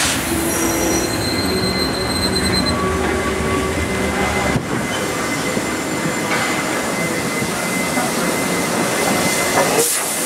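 Steam locomotive rolling slowly past tender-first, its wheels running with a steady rumble and thin high-pitched squeals in the first few seconds.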